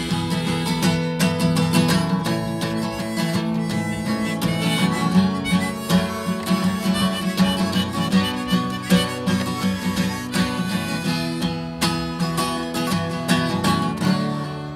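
Acoustic guitar strummed in a steady rhythm, with a harmonica playing held notes over it.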